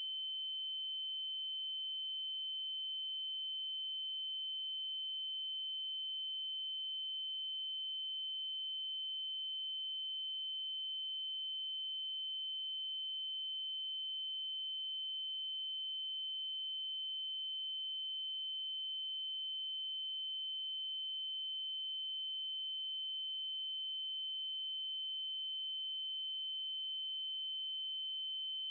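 Synthesized 3072 Hz triangle-wave tone, a steady high pitch held without a break, with faint overtones above it.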